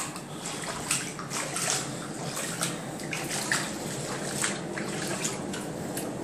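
Bare feet splashing and sloshing through a few centimetres of floodwater on a tiled floor, in irregular short splashes over a steady watery hiss.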